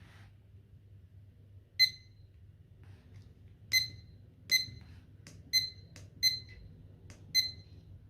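Digital kitchen thermometer's beeper giving six short, high beeps at uneven intervals, with a few faint clicks between them.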